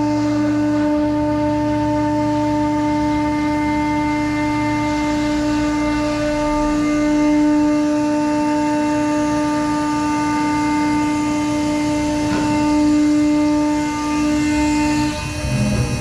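CNC router spindle running with a steady high-pitched whine that stops about a second before the end.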